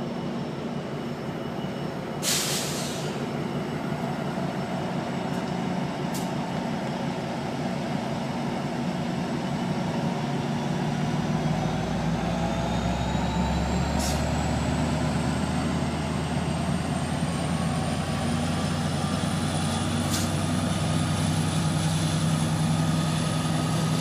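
Amtrak Pacific Surfliner diesel locomotive running at the station, with a short burst of air hiss a couple of seconds in. About ten seconds in, its engine throttles up into a deep rumble, and a thin whine climbs slowly as the train pulls away.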